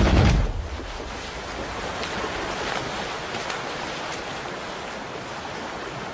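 A heavy, deep splash and rumble as a deer plunges into an icy mountain stream. It is followed by steady rushing, churning water broken by smaller splashes as the animal thrashes.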